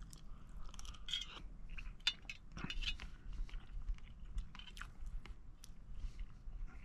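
A metal spoon scraping and clinking in an opened tin of tuna, a quiet string of small, irregular clicks and scrapes, with some chewing.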